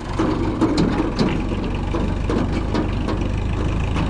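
Farm tractor engine running steadily as the tractor drives past towing a small trailer, with a few sharp knocks over the engine.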